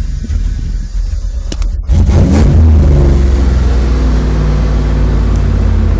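1999 Dodge Ram 1500's 5.9-litre V8 idling roughly, then about two seconds in it is revved up suddenly and held at a higher speed, its pitch easing down a little toward the end.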